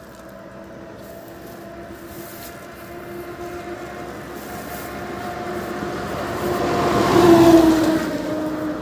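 A motor vehicle approaching along the road and passing close by. Its steady hum grows louder over several seconds, peaks about seven and a half seconds in, and drops slightly in pitch as it goes past.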